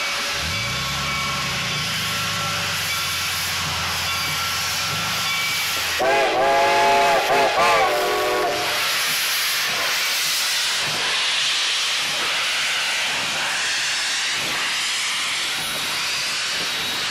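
Steam locomotives at rest hiss steadily with escaping steam, under a deep steady tone for the first few seconds. About six seconds in, a multi-note steam chime whistle blows loudly: one longer blast, then two short ones. In the second half come slow, evenly spaced exhaust beats as a locomotive gets under way.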